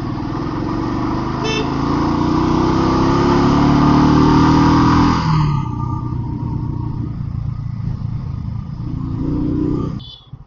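Royal Enfield Thunderbird 350 Twinspark single-cylinder engine under way, rising in pitch as it accelerates, with wind rush on the microphone. About five seconds in the pitch drops and the wind fades as the throttle is eased, and the engine runs on more steadily until the sound cuts off near the end.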